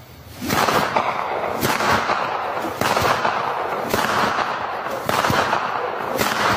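Loud, dense crackling and popping, with heavier pops about once a second, starting about half a second in. It stands for a man's joints cracking and crunching as he stretches.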